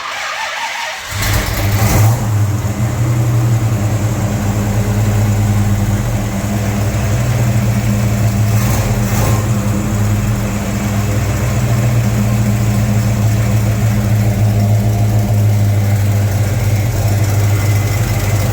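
Freshly rebuilt Pontiac 400 V8 in a 1970 GTO catching and starting about a second in, revving briefly, then settling into a steady idle.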